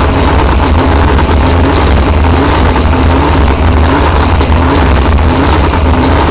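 Supercharged Ford engine of a blown flat-bottom boat running loudly at low speed, a steady deep drone with a faint short chirp recurring about every two-thirds of a second.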